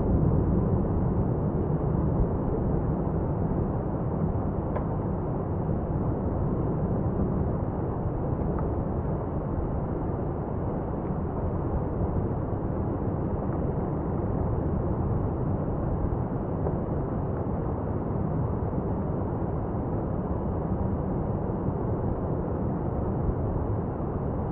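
Lava fountain from Etna's South-East Crater during a paroxysm, jetting continuously: a steady, deep rushing noise without separate blasts, a little louder in the first couple of seconds.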